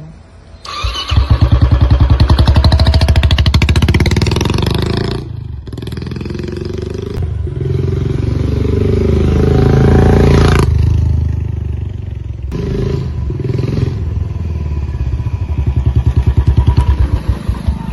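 Royal Enfield Classic 350 single-cylinder motorcycle with a long 'Punjab' aftermarket silencer riding past, its exhaust beat swelling and fading as it passes several times: loud about a second in, again near the middle, and again near the end. The silencer has just been refitted with its joint screw tightened to stop an air leak that had changed the exhaust note.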